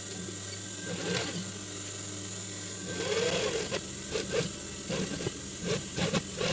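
Industrial sewing machine running and stitching a binding strip onto the edge of a mesh trucker cap. A steady motor hum carries through, with short irregular surges as the fabric is fed under the needle.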